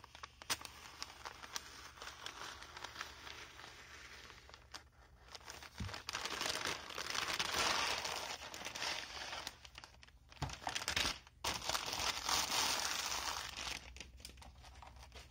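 Paper mailer crinkling and rustling as it is slit open with an Olfa utility knife and a plastic clamshell pack is slid out. The crinkling is loudest from about six seconds in and again from about ten seconds in.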